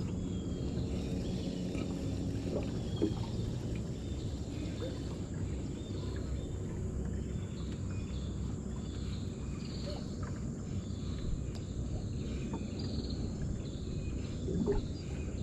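Riverside ambience: a steady low rumble under a constant high-pitched insect drone, with a few faint chirps.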